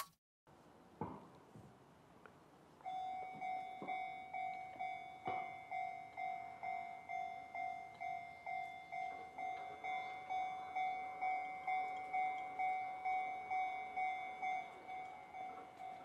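Enoden level crossing warning bell starting up about three seconds in: a clanging "kan-kan" ringing tone repeated evenly, about two strikes a second, signalling an approaching train. A faint knock comes just before it.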